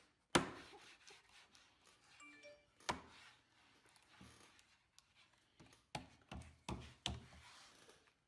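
Quiet rubbing of a bare hand spreading wood glue over a plywood panel, with a sharp knock about half a second in and a few lighter knocks near the end.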